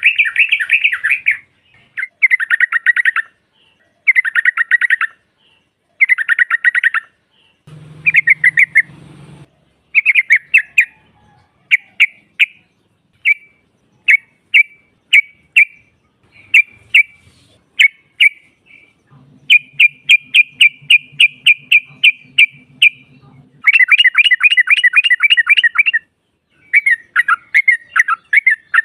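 Female yellow-vented bulbul calling: bursts of fast chattering notes about every two seconds, then a run of quick single notes around the middle, and longer chattering runs near the end.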